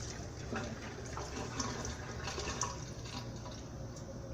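Engine oil draining from a 2020 GMC Acadia's 2.0-litre turbo four-cylinder oil pan into a drain pan: a faint trickle with scattered drips.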